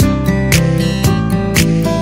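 Background music: strummed acoustic guitar over a steady beat.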